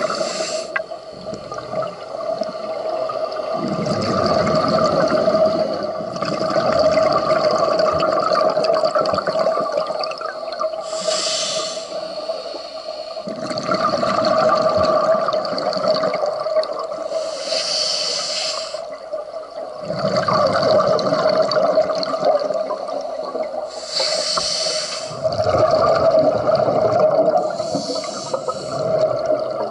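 Scuba diver breathing underwater through a regulator: slow inhalations with a low rushing hiss, alternating with bursts of exhaled bubbles about every six or seven seconds. A steady hum runs underneath.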